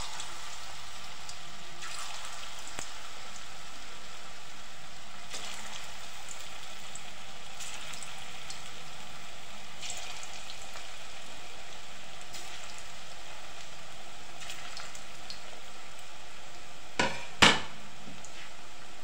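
Vegetable manchurian balls being dropped one at a time into hot oil in a wok: the oil sizzles steadily and flares up briefly each time a ball goes in, every two or three seconds. Two sharp knocks near the end, the second the loudest.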